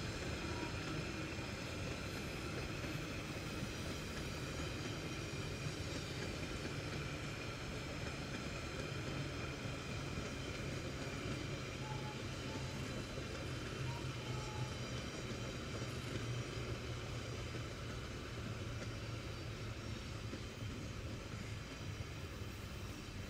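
Indian Railways NMG goods rake (New Modified Goods wagons) rolling steadily past, a continuous rumble of wheels on the rails.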